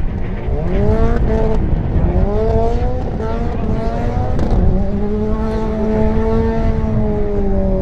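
Subaru Impreza rally car's turbocharged flat-four engine revving while the car drives off the stage through a muddy stubble field. The revs climb twice in short rises, then hold at a steady high pitch from about five seconds in.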